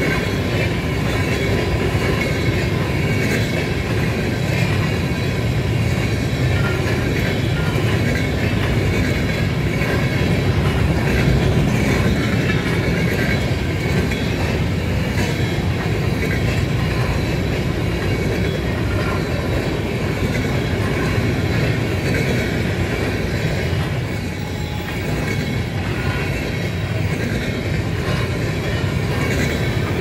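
Empty covered hopper cars of a BNSF grain train rolling past: a steady, unbroken rumble of steel wheels on rail, with faint high, steady ringing tones above it.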